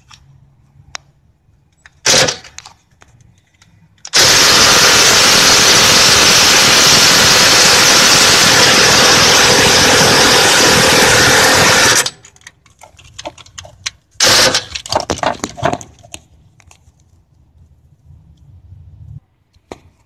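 Milwaukee half-inch impact wrench hammering on the crank pulley bolt of a Honda D-series engine, trying to break the stubborn bolt loose. There is a brief burst about two seconds in, then a long run of about eight seconds, and a second, shorter burst near the end.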